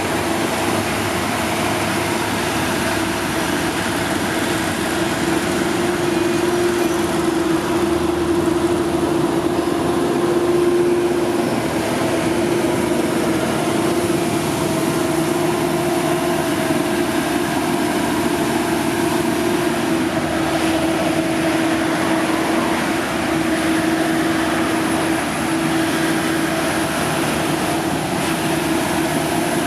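Heavy diesel construction machinery running, a steady engine drone with a constant hum that swells slightly about ten seconds in.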